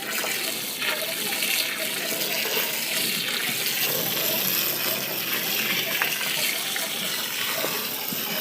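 Water gushing and running steadily, with a few light knocks.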